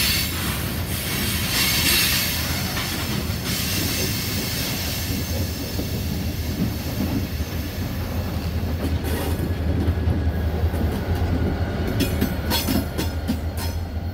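Freight train passing: covered hopper cars rolling by with a high wheel squeal and hiss for the first few seconds, then the diesel locomotives going past with a steady low engine drone. Sharp wheel clicks over the rail joints come in over the last few seconds.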